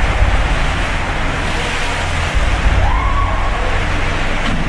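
Storm noise aboard a cruise ship: a steady rushing noise over a deep rumble, with water surging in the rolling ship's pool. A brief rising-and-falling whine comes about three seconds in.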